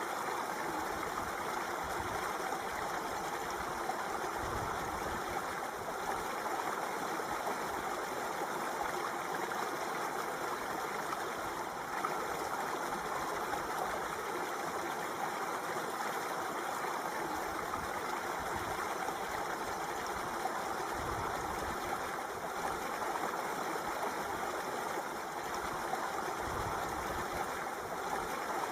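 Water running steadily in an even, unbroken rush.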